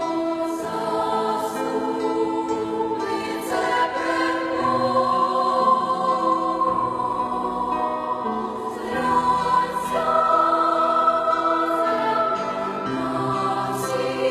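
A choir singing in sustained chords, the held notes moving every second or two.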